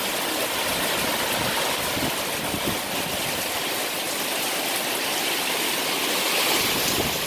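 Heavy downpour: a steady, dense hiss of rain falling on trees and on a corrugated metal veranda roof.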